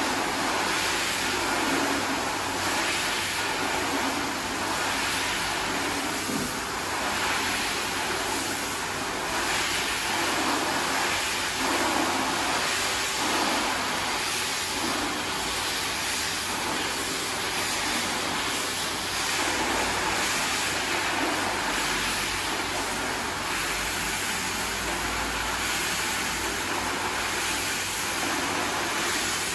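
Single-disc rotary scrubbing machine running steadily, its motor humming and its brush swishing through soapy foam on a wet rug.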